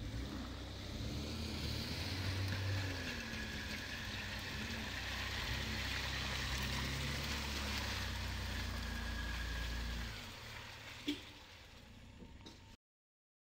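Engines of Toyota Land Cruiser 80-series trucks running under load, their pitch wavering, as one tows the other out of mud on a recovery strap, with a wash of noise from tyres churning mud and water. The engine drops away about ten seconds in, followed by a single click and then silence.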